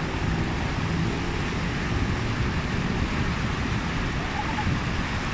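Car moving slowly through a flooded street, heard from inside the cabin: a steady low rumble of engine and tyres with the wash of water pushed aside by the wheels.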